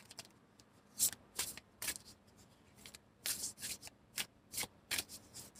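Tarot deck being shuffled by hand: about a dozen short, uneven rustles and flicks of cards, fairly quiet.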